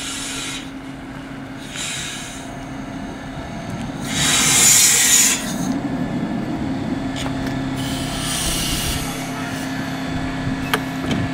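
DB Class 628 diesel multiple unit rolling slowly past along the platform, its diesel engines humming steadily. Bursts of hiss come and go over the hum, the loudest about four seconds in.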